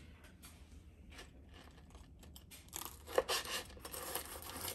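Chef's knife slicing through the crispy breaded crust of an air-fried corn dog: faint scattered crackles at first, then louder crunching and scraping in the last two seconds, with a sharp tap about three seconds in.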